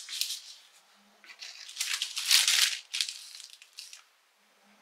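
Rustling and crinkling handling noise, several short rustles loudest around the middle and dying away near the end.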